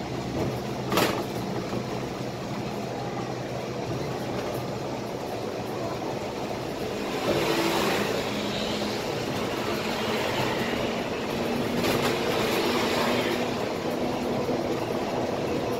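Scania K320 IA articulated bus driving at speed, heard from the driver's seat: a steady engine and road drone that grows louder from about seven seconds in, with one short click about a second in.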